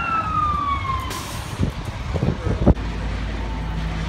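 Fire engine siren winding down, its tone falling in pitch until it fades out about a second in. A single sharp thump comes near the end, followed by a vehicle engine humming steadily.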